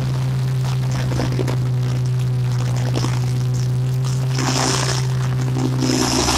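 Riding mower engine running at a steady speed as the mower drives over a thick layer of dry leaves, with bursts of hissing rushing as it takes in leaves, once about four seconds in and again near the end.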